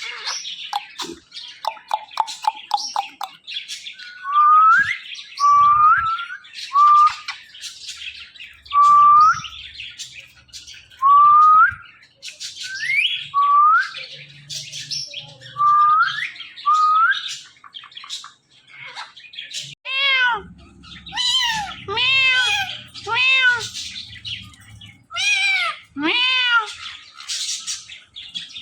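A green ringneck parakeet calling: quick chirps at first, then rising whistles about once a second, then, from about two-thirds of the way in, a string of arching meow-like calls in imitation of a cat.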